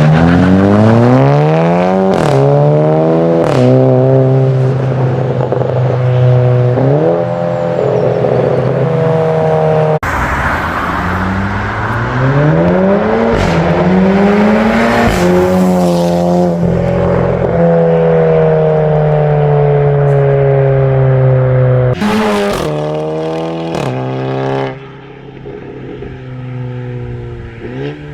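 Seat Leon Cupra ST's turbocharged 2.0 four-cylinder, fitted with an aftermarket exhaust, accelerating hard through the gears. Its note climbs and drops back at each upshift, over several separate runs.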